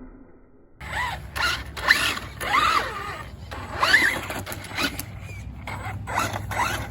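Traxxas Rustler 4x4 VXL RC truck driving, starting suddenly about a second in: its electric motor whines up and down in pitch with the throttle over a rushing running noise.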